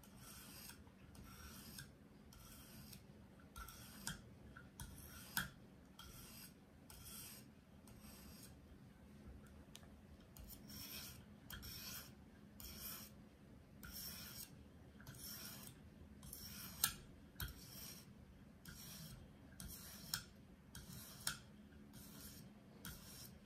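Faint, rasping scrape of a KME guided sharpening stone, probably the 600 grit, stroked over and over along a kitchen paring knife's edge near the tip, which still needs work. Short strokes come roughly two a second, with a few sharper clicks among them.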